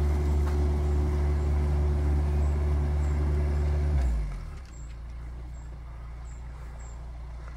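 Canal boat diesel engine running steadily, then dropping sharply in level and stepping down in pitch about four seconds in, leaving a quieter low hum.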